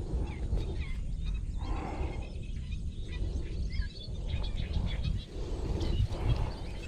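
Small birds chirping in short, scattered calls over a low, uneven rumble.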